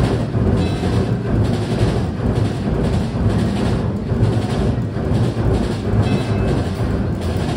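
A giant carousel turning, its low steady rumble mixed with music with a drum beat.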